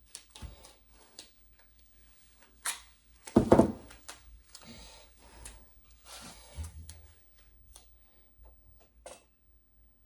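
Hand-work noises on a small picture frame and a roll of duct tape: scattered light clicks and taps, a brief rustle, and one loud thump about three and a half seconds in.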